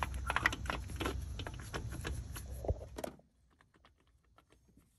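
Socket ratchet with a long extension clicking in quick irregular runs as bolts on a car's engine mount are turned. About three seconds in the sound drops suddenly to faint, sparse ticking.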